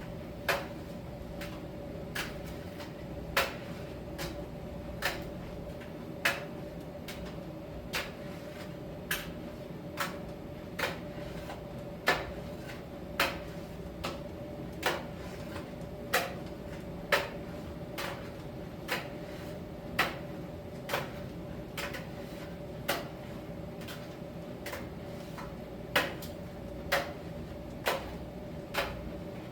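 Miele T1 heat-pump dryer running in its drying phase: a steady hum with a constant mid-pitched tone, and sharp knocks roughly once a second, slightly irregular, as the load tumbles in the drum.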